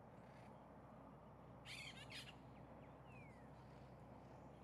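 Birds calling: two short, harsh, crow-like calls close together about two seconds into a quiet stretch, with a faint falling whistle a moment later.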